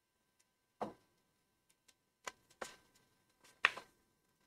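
Quiet handling of a paper sticker sheet as a sticker is lifted off it with a scalpel: a handful of short crinkles and ticks, the loudest about three and a half seconds in.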